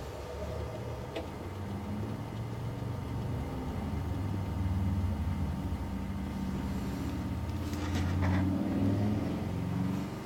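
A low rumble that swells over several seconds and dies away near the end, with the sound of a vehicle engine.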